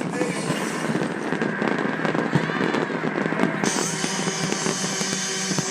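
Fireworks popping and crackling in quick succession over festival dance music.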